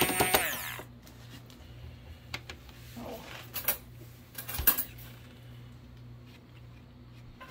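KitchenAid stick blender motor winding down after being switched off, its whine falling away within the first second. Then a few knocks and clicks of the blender shaft against the plastic beaker of thick mayonnaise as it is lifted out, the loudest a little over halfway through.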